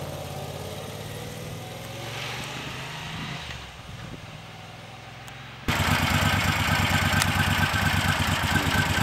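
A motorcycle pulling away, its engine sound dropping in pitch and fading. About halfway through it cuts abruptly to a Moto Guzzi transverse V-twin idling close by, much louder, with a steady, even pulse.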